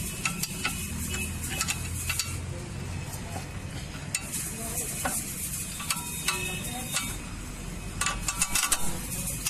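Steel tools and a 17 mm bolt and nut clinking and clicking as the bolt is fitted through the strut mount, with a quick run of clicks about eight seconds in.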